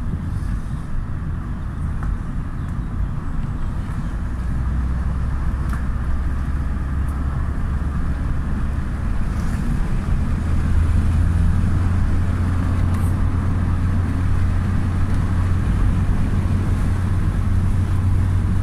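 Steady low drone of a car's engine and tyre noise heard inside the cabin, growing a little louder about halfway through.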